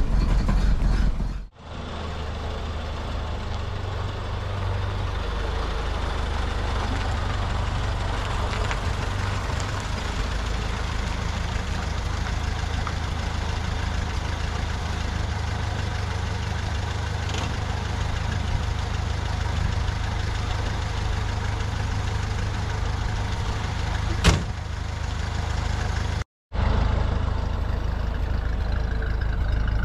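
1932 Ford Model B's four-cylinder engine idling steadily while it warms up after a cold start. A single sharp click comes about 24 seconds in, and the sound cuts out briefly just after 26 seconds.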